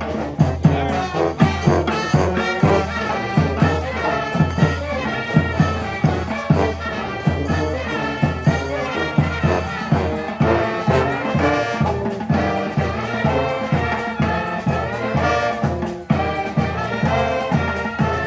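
Street brass band playing live, instrumental: trumpets and trombones in several parts over a steady drum beat, with a sousaphone holding the bass line.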